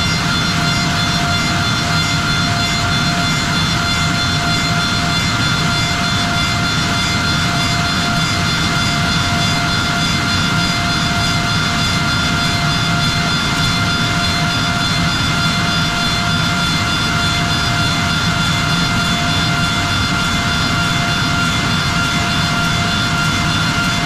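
Bacci T4MO CNC wood-machining centre running, its spindle motors giving a steady whine at several fixed pitches over a constant low hum.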